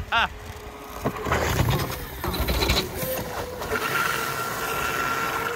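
6S electric RC jet boat running flat out across water, with a rush of spray and wind noise, then from about halfway a steady whine from its motor and jet pump.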